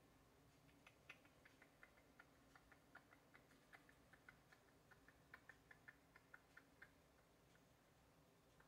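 Faint small metallic clicks, about three or four a second, stopping after about seven seconds: small tools and parts being worked by hand at a chainsaw's connecting rod and crankshaft.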